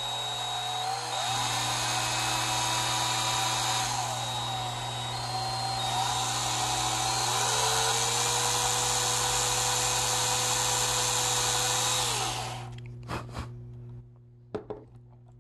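Cordless drill running, its bit boring into the side of a carved wooden puppet head. The motor's pitch wavers up and down as the speed changes, then winds down about twelve seconds in, followed by a few light clicks and knocks of handling.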